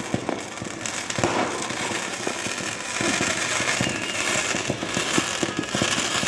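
Fireworks going off in quick succession: many sharp pops and bangs over a steady crackle, getting busier about halfway through.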